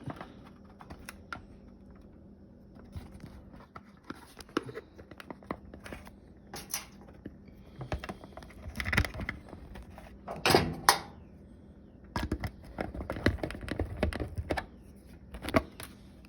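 Scattered clicks, taps and light metallic rattles of a replacement stove burner switch being held in place and screwed into the control panel, with a few louder knocks in the second half.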